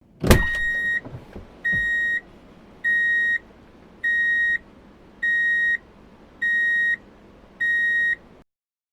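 An electronic beeper sounding seven steady, even beeps, each about half a second long and a little over a second apart, after a sharp click at the start; the beeping cuts off suddenly near the end.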